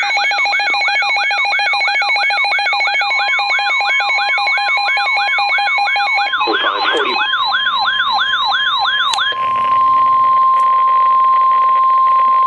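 Several weather radio receivers (RadioShack 12-993, RadioShack 12-382, Midland WR-100) sounding their alert alarms together: rapidly repeating swooping siren tones layered with fast steady beeps, signalling an incoming warning. About nine seconds in the sirens stop, leaving one steady high tone, the Weather Radio warning alarm tone.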